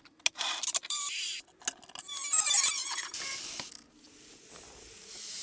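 Workshop tool sounds from restoring a small model boat: a run of short scraping and rubbing strokes with clicks, then a steadier hiss-like rubbing near the end.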